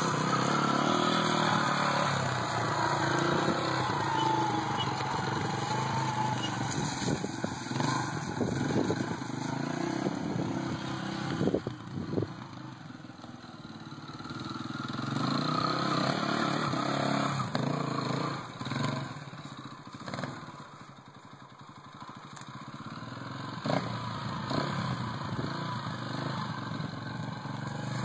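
Small dirt bike's engine running as it is ridden, revving up and down. It drops quieter twice as the bike moves off, about halfway through and again about three quarters of the way in, and comes back louder.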